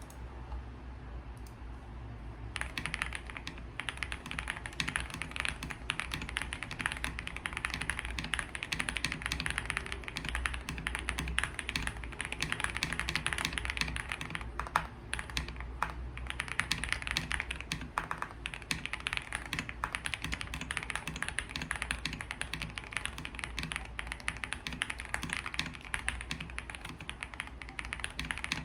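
Continuous fast typing on a Tiger80 Lite mechanical keyboard with Quartz V1 switches, a polycarbonate plate, PCB and plate foam, and ePBT PBT keycaps: a dense run of key clacks, starting about two and a half seconds in over a faint low hum.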